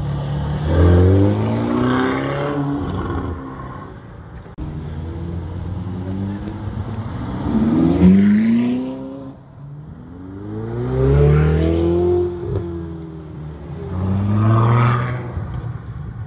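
Ferrari sports cars accelerating away one after another: four separate bursts of engine revving, each rising in pitch and then fading as the car drives off, with lower engine rumble between them.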